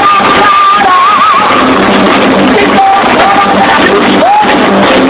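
Live heavy metal band playing loud electric guitars and drums, heavily distorted by a phone microphone. A held high note wavers and bends about a second in, and shorter sliding notes come near the end.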